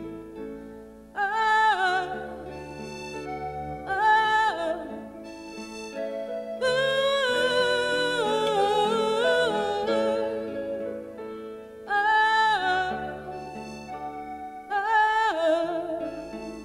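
Live klezmer band playing an instrumental passage: a lead melody instrument in short ornamented phrases over sustained accompaniment and bass, with a longer, more elaborate run in the middle.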